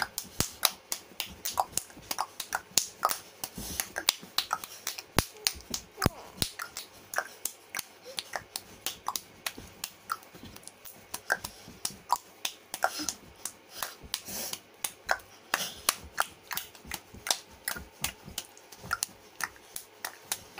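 A long run of sharp, irregular clicks, about two or three a second, with a few faint voice sounds mixed in.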